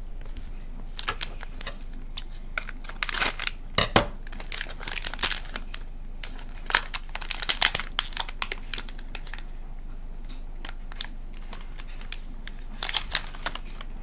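Foil blind bag crinkling and tearing as it is opened by hand, in rapid clusters of crackles, with a lull of a few seconds before a last flurry near the end.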